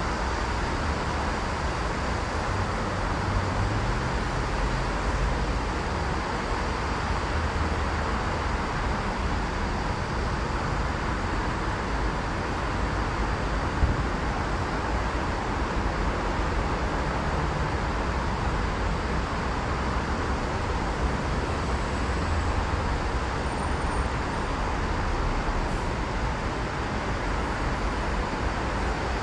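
Steady city road traffic noise, an even hum of many vehicles, with one short click about halfway through.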